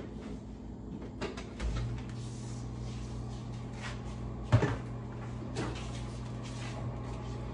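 Kitchen cupboard doors and counter items knocking as someone works at the counter; a sharp knock about four and a half seconds in is the loudest. A steady low hum sets in under it about two seconds in.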